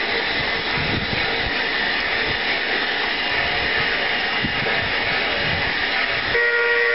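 Black River and Western's 2-8-0 steam locomotive No. 60 working slowly along the track with a steady hiss and rush of steam and running noise. About six seconds in, its multi-tone steam whistle starts blowing.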